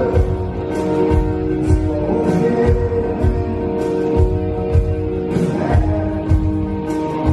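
Live rock band playing a song, recorded from the hall. A steady kick-drum beat runs under held keyboard and guitar chords, with a sung vocal line.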